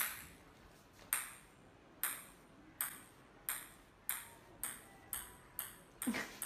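A celluloid ping-pong ball bouncing on a tile floor as two cats bat it back and forth: about ten sharp pings, about a second apart at first and coming faster towards the end.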